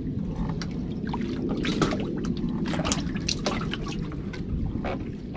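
Water dripping, trickling and spattering in many short splashes at the side of a small wooden canoe, over a steady low rumble of wind and lapping waves.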